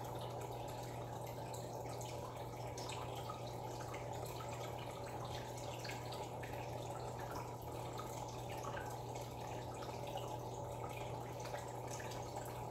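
Aquarium air bubbles rising and popping steadily, with many small drip-like ticks over a steady low hum.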